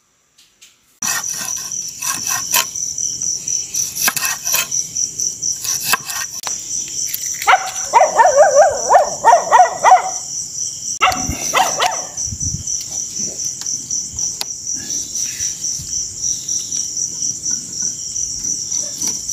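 Crickets chirping in a steady, fast-pulsing high chorus, with scattered clicks and knocks from the metal hooks of a longline being handled on a box rim. About eight seconds in, a loud rapid run of pitched calls lasts about two seconds.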